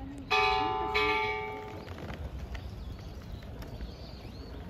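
A bell struck twice, the second strike about two-thirds of a second after the first, each ringing at the same pitch and fading over about a second.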